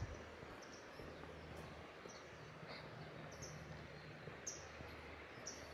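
Faint outdoor ambience: a bird gives short, high chirps roughly once a second, over a steady low rumble.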